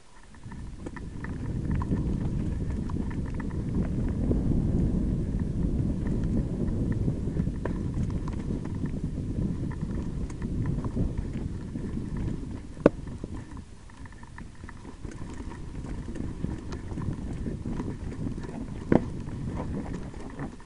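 Mountain bike rattling and clattering as it rolls slowly over a loose rocky trail: a dense low clatter of tyres on stones, chain and frame. It builds about a second in, with two sharp knocks, one about halfway and one near the end.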